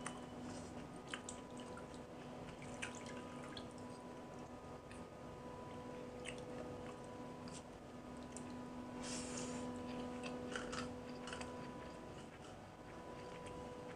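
A hand squishing and mixing soaked rice in water in a steel bowl, with drips, small splashes and scattered light clicks against the metal. A steady hum runs underneath.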